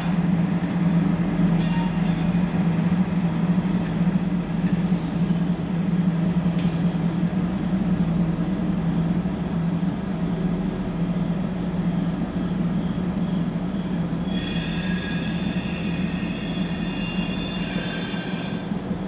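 Freight train rolling past with a steady low rumble. Its wheels give short high-pitched metallic squeals near the start, then a long squeal about fourteen seconds in that lasts around three and a half seconds.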